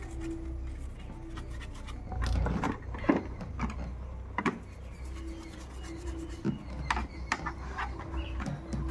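A brush scrubbing a helmet's shell and visor with shampoo: irregular rubbing and scraping strokes with scattered light clicks, over a low steady hum.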